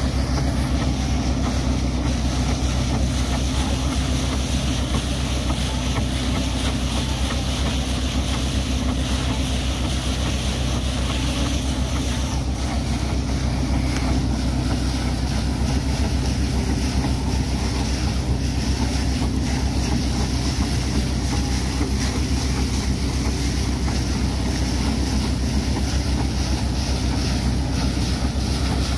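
Borewell drilling rig's engine running with a steady low drone, while water gushes and sprays out of the newly drilled borehole under strong pressure with a continuous hiss and splash.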